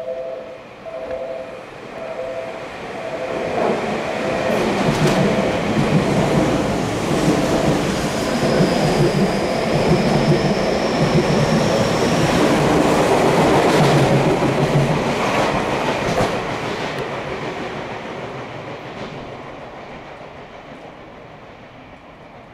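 Tokyu Toyoko Line electric train passing through the station at speed without stopping. A repeating two-tone signal sounds over the first few seconds. The rumble and clatter of the wheels builds, runs loudest for about ten seconds with a thin high whine in the middle, then fades away.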